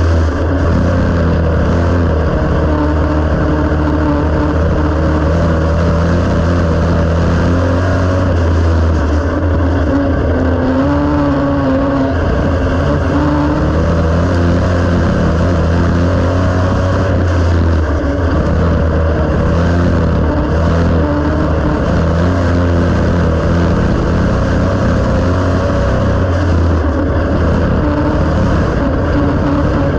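Dirt-track race car engine running hard under racing load, heard from inside the cockpit, its pitch rising and falling slightly as the car works through the turns and straights.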